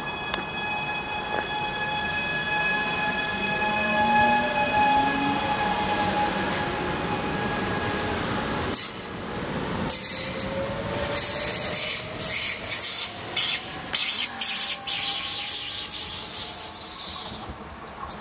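An ETR 425 'Jazz' electric multiple unit running past on a curve. Its drive gives a steady whine of several tones, some gliding up or down in pitch, then from about nine seconds in come repeated short, high-pitched squeals of the wheels on the curved track.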